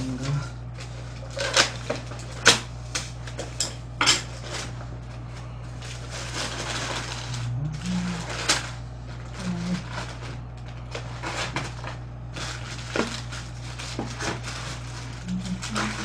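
Paper and plastic takeout packaging rustling and crinkling as a whole fried chicken is unwrapped from its paper box and wrapping, with many sharp crackles and knocks, loudest in the first few seconds. A steady low hum runs underneath.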